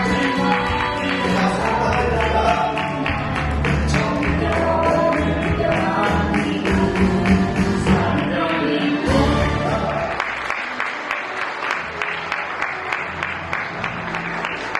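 Background music with a steady beat and a bass line; the bass drops out about ten seconds in and the music goes on lighter.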